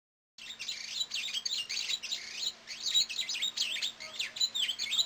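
Bird song recording: a rapid, continuous run of high, sweeping chirps and trills. It starts abruptly about half a second in and is cut off sharply at the end, with a faint steady hum under it.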